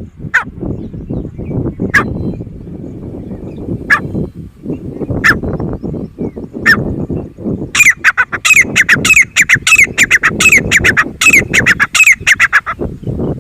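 Grey francolin calling: five single sharp notes spaced a second or two apart, then, just past halfway, a fast run of repeated, downward-sliding, ringing notes lasting about five seconds. A rough low rumble runs underneath.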